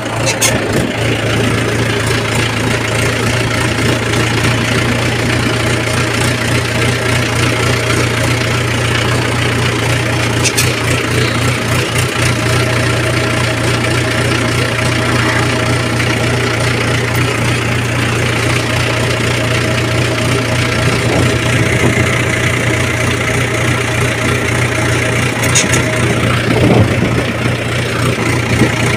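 Farm tractor's diesel engine running steadily while under way on a rough track, an even low drone heard from the driver's seat.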